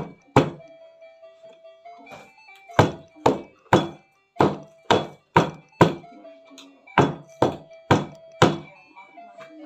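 A baking tray of piped macaron shells banged down on a table again and again: about a dozen sharp thuds, half a second apart, in quick runs of three or four, knocking trapped air out of the batter. Light background music plays underneath.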